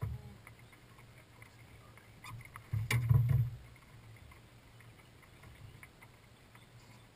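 Knocks and thumps on a boat's deck as a fish and landing net are handled, with one loud cluster of low thumps about three seconds in and light clicks and rattles around it.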